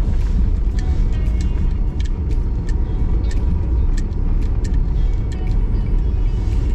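Car engine and road noise heard from inside the cabin while driving: a steady low rumble with frequent short, sharp ticks.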